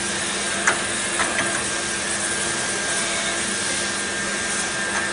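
CNC tube bending machine running: a steady mechanical hum with a constant high whine, and a few sharp metallic clicks about a second in.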